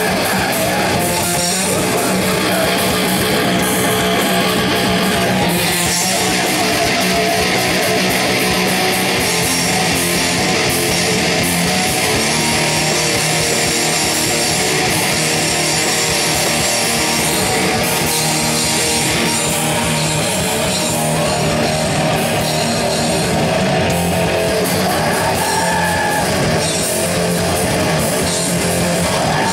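Live grindcore band playing, with a distorted electric guitar leading a loud, dense, continuous wall of sound.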